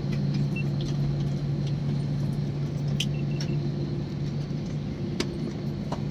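Cabin noise of an Airbus A320-family airliner rolling on the ground after landing: a steady engine hum and rumble, with light rattles and clicks from the cabin, one sharper click about five seconds in.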